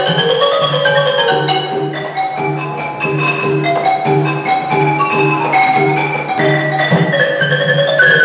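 Ranat ek, the Thai classical xylophone, played with mallets in a fast, continuous run of notes. A hand drum strikes a steady low beat about twice a second underneath.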